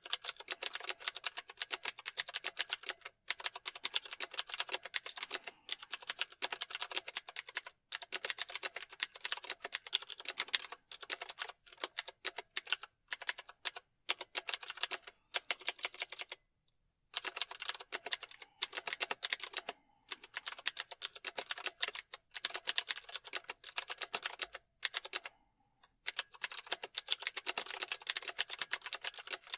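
Fast, continuous typing on a computer keyboard: dense runs of key clicks, broken by a few short pauses.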